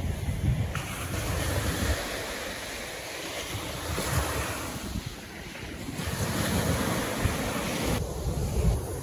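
Ocean surf breaking and washing up a sandy beach, swelling and easing, with wind buffeting the microphone.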